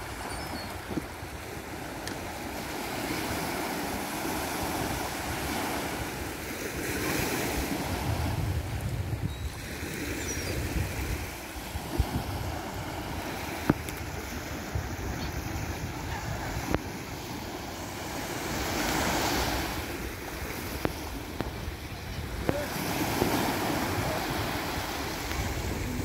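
Small sea waves breaking and washing up on a sandy beach, the surf swelling every few seconds, with wind buffeting the microphone. A few sharp clicks stand out above it.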